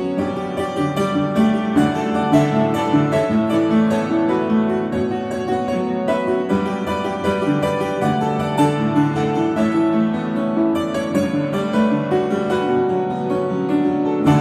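Electronic keyboard played with both hands: a fast, continuous stream of notes over lower sustained notes.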